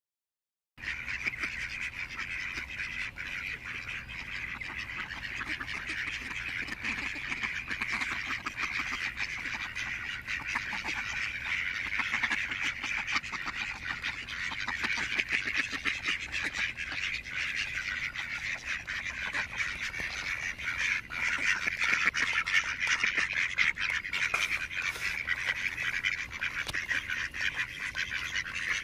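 A flock of mallard ducks quacking all at once, a dense, unbroken chorus of overlapping calls, loudest about three quarters of the way through. The ducks are crowding close, begging for food.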